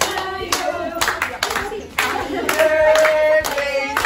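A group of people singing together while clapping in time, about two claps a second, with one long held note near the middle.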